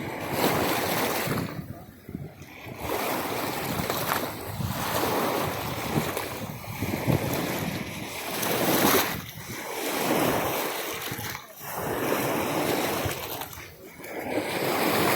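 Lake waves washing against the shore in repeated surges every couple of seconds, with wind.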